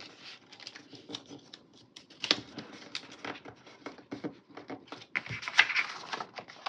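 Small handling sounds of paper stickers and a planner page: scattered light clicks and taps, with a louder paper rustle a little after five seconds in as a sticker is peeled and pressed down.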